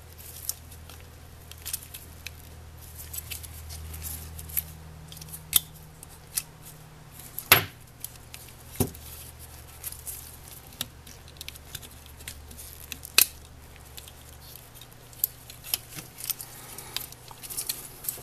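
Small plastic parts of a model locomotive clicking and snapping under gloved fingers as a speaker housing is pushed and worked onto the frame, not yet seating fully. Scattered sharp clicks, the loudest about seven and a half seconds in and again about thirteen seconds in.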